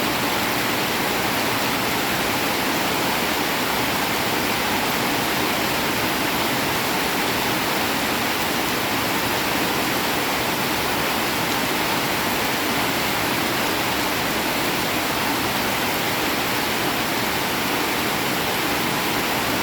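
Heavy rain falling steadily, an even, unbroken wash of sound with no single drops or gusts standing out.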